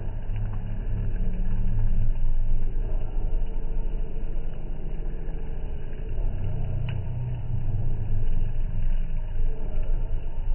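Steady low rumble with a few sharp snaps from a wood fire of burning sticks, one standing out about seven seconds in.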